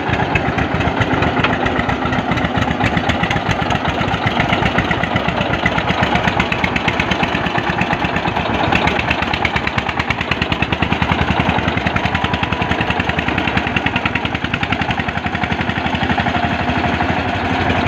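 Diesel tractor engines running hard, a loud, fast, steady chugging of firing strokes, as a small tractor's rear wheels spin in deep mud.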